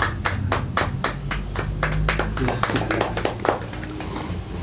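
Hand clapping from a few people, a quick run of distinct claps that stops about three and a half seconds in.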